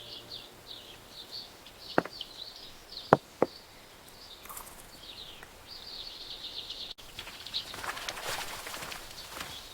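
Small birds chirping and twittering over rural outdoor ambience, with three sharp clicks or knocks, one about two seconds in and two close together about three seconds in, the loudest sounds here.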